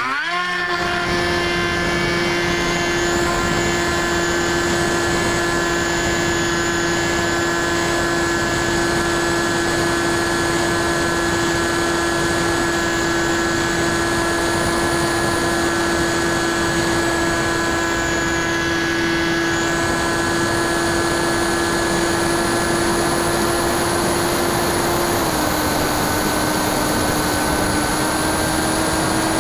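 Brushless electric outrunner motor (NTM Prop Drive 35-30A, 1400 kV) spinning a 9x6 propeller on a Bixler 2 model plane in flight, heard from the plane's onboard camera. A steady high whine that winds up quickly at the start and drops a little in pitch a few seconds before the end, over rushing air noise.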